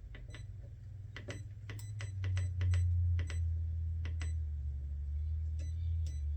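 Steady low-pitched hum of a 40 Hz sine test tone, swelling louder about two and a half seconds in, with a string of sharp clicks like a computer mouse over it.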